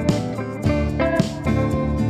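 Background music: guitar-led, country-style track with a steady beat.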